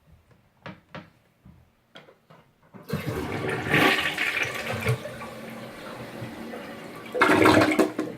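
A few light knocks, then a Foremost dual-flush toilet flushing: a sudden rush of water about three seconds in, a steadier swirl, and a second loud surge near the end as the bowl empties.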